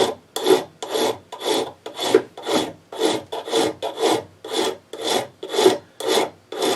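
Hand file rasping across aluminium in even back-and-forth strokes, about two a second: filing down the aluminium pump housing around a broken-off hose fitting so the new fitting's threads can bite.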